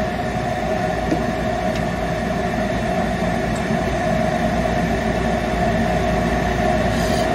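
A steady machine drone, a motor running with a constant mid-pitched hum over a low rumble.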